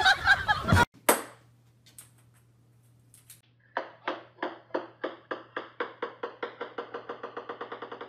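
Laughter and exclamations over music, cut off about a second in. Then, from a few seconds in, a small ball bouncing on a hard floor: a run of sharp taps that come faster and faster and grow fainter as the bounces settle.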